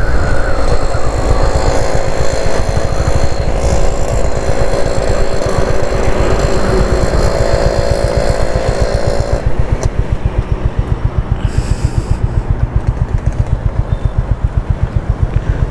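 Honda H'ness CB350 single-cylinder engine running with a low thudding beat. From about nine seconds in it settles into an even thump of about six beats a second, as at low revs.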